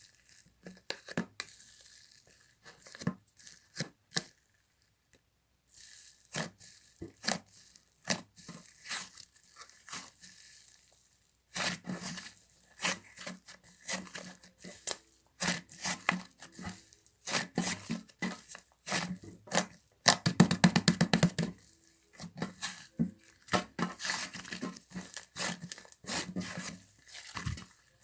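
Slime being squished, stretched and poked by hand: sticky clicks, pops and crackles come in uneven clusters, with a pause about five seconds in. About twenty seconds in comes a quick, loud run of crackling pops.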